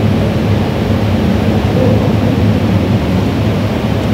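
Loud, steady rumbling noise with faint voices murmuring beneath it, about two seconds in.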